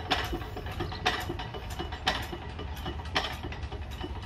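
New Holland single-cylinder hit-and-miss engine coasting down without firing, its throttle at zero so the governor holds the intake valve shut. The valve gear and governor clatter with a sharper click about once a second, spaced slowly wider as the flywheels lose speed.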